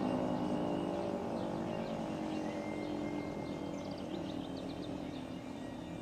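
Federal Signal 3T22 three-tone electromechanical siren winding down, its chord sliding slowly lower and fading. Small birds chirp over it.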